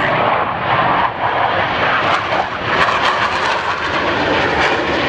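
Jet engines of two Blue Angels F/A-18 Hornets flying a low pass in formation in carrier landing configuration, gear and flaps down: a loud, steady rushing jet noise.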